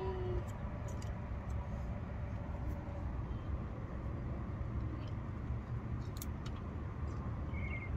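Steady low background rumble with a few faint clicks, the clearest a little after six seconds in.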